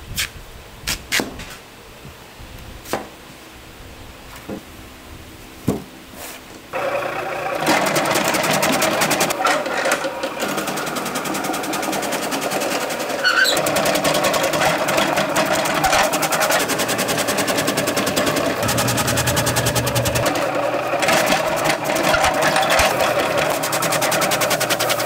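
A few scattered knocks, then about seven seconds in a motorized kitchen machine switches on and runs steadily with a very fast, even rattle.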